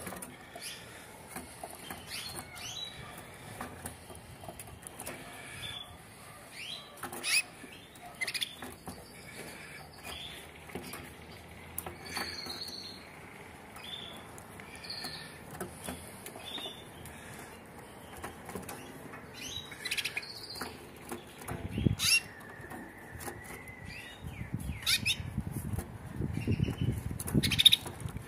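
Canaries giving short, scattered chirps and call notes, with a few sharp knocks and a low rumble in the last few seconds.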